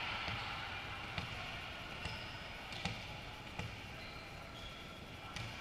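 Volleyball thumps, about six sharp, irregularly spaced hits over a few seconds, against steady background noise.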